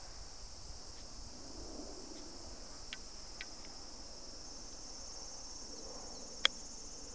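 Steady high-pitched chirring of insects, with a single sharp click about six and a half seconds in as a golf iron strikes the ball for a low running chip.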